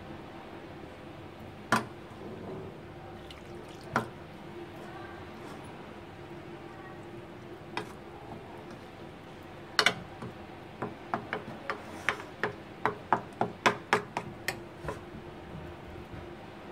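Steel spoon clinking against the bowl while stirring flour and water into a thin paste: a few scattered clinks, then a quick run of about three or four clinks a second for some four seconds, over a steady low hum.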